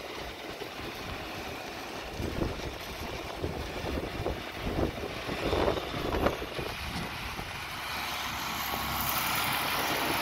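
John Deere 4020 tractor with a front-end loader running as it drives across gravel, getting louder near the end as it comes close and passes.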